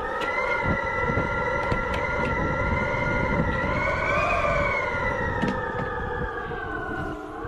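Wind howling into a high-rise flat: a steady, whistling moan of several pitches at once that rises a little about four seconds in and sinks again, over a low buffeting rumble. It is the kind of howl that high wind makes forcing past window seals that may not be tight.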